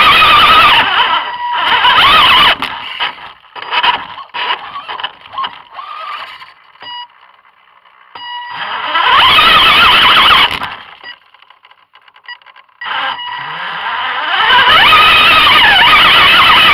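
Electric motors and gearboxes of 1/10-scale RC crawler trucks whining under throttle as they climb, the high whine rising and falling with throttle and coming in bursts, with short pauses and choppy stop-start stretches between.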